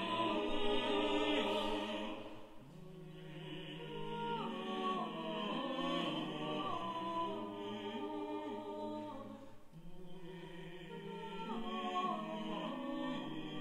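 SATB vocal quartet singing held, overlapping notes that step slowly from chord to chord, softening briefly twice.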